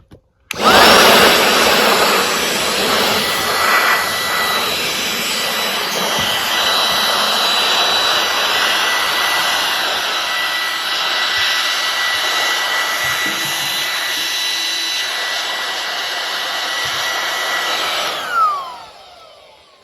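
Bauer 20-volt cordless inflator/deflator running as a blower, a rush of air with a steady high whine from its small fan motor. It switches on sharply about half a second in, runs steadily, and near the end is switched off and spins down with a falling whine.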